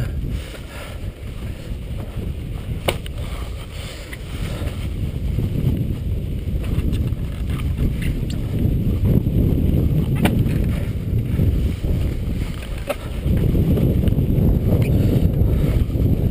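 Wind rumbling on an action camera's microphone, getting louder through the stretch, with a few sharp clicks.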